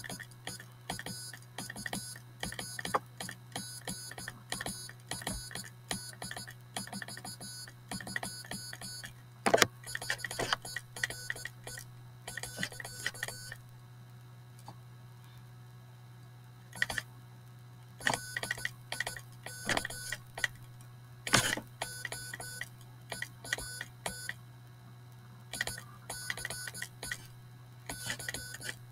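Homemade relay-based code practice oscillator buzzing in short and long bursts as a homemade straight key sends a Morse code message, with a pause of a few seconds about halfway through. A steady low hum runs underneath.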